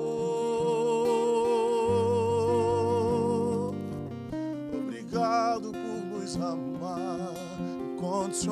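Steel-string acoustic guitar accompanying a male singer in a slow worship song: he holds one long note with vibrato for about three and a half seconds, then, after a brief dip, sings a few shorter wavering phrases over the guitar.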